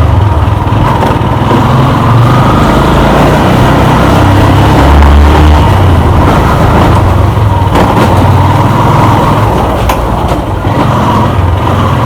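Motorcycle engine running, with a loud, uneven low rumble throughout.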